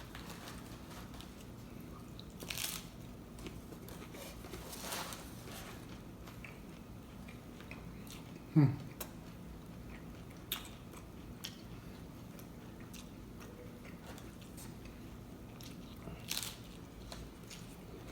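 Crunchy taco shells being bitten and chewed close to the microphone, with a few sharp crunches spread apart and quieter chewing between them. About halfway through comes a short, low, falling hum from the eater.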